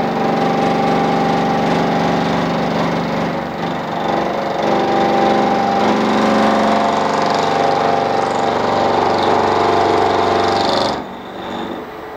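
Milling machine cutter gashing a 45° lead into a tooth of a 1952 Bentley ring gear: a loud, steady machining sound with several steady tones. It cuts off abruptly about eleven seconds in.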